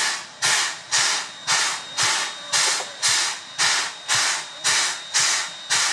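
Steam locomotive chuffing as it moves off slowly with its train: evenly spaced hissing exhaust beats with a low thump in each, about two a second.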